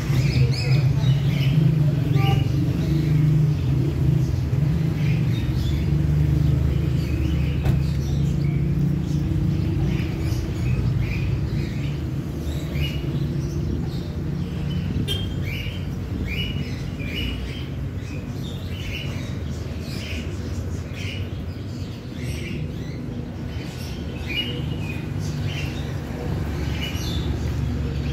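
Small birds chirping: many short, high chirps repeated throughout, over a steady low rumble.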